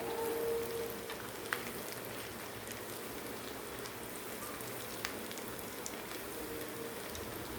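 Potato cheese balls deep-frying in hot oil in a kadai: a steady sizzle with scattered small pops and crackles.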